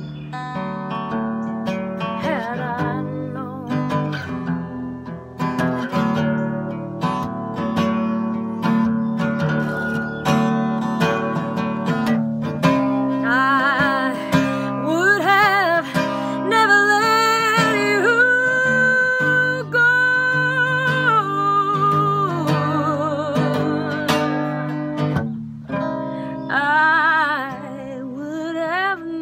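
Acoustic guitar strummed steadily. About halfway through, a woman's voice joins it singing with vibrato and holding long notes, with a short pause near the end.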